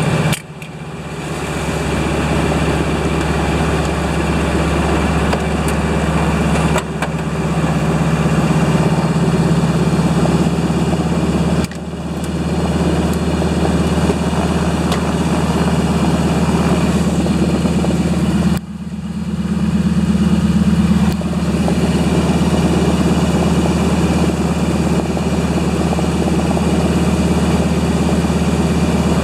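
De Havilland Beaver floatplane's piston engine and propeller running steadily at high power. The sound drops abruptly about four times and builds back up within a second or two each time.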